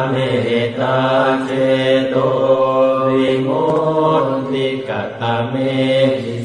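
A Buddhist monk's voice chanting into a microphone: a steady recitation on long held, nearly level notes with short breaks between phrases.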